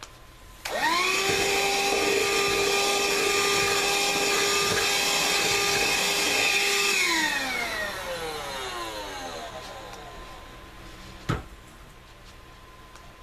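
Handheld electric blower switched on, spinning up quickly to a steady whine, blowing air into a freshly loaded wood stove's firebox to get the fire going. After about six seconds it is switched off and its pitch falls as it winds down. A single sharp knock near the end.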